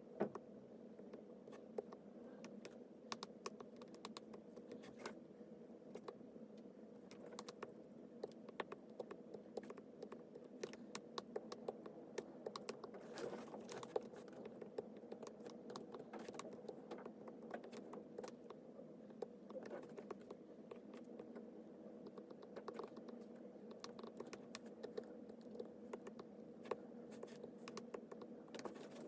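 Stylus tip tapping and clicking irregularly on a tablet's glass screen, many quick taps, over a steady low hum.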